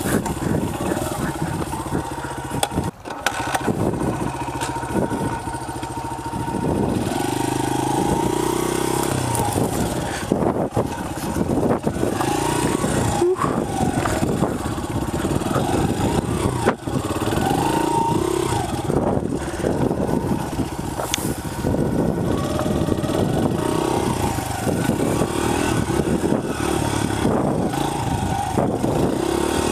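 Honda CRF100F's small four-stroke single-cylinder engine running at low speed over a rough dirt trail, the revs rising and falling with the throttle, and dropping off briefly twice.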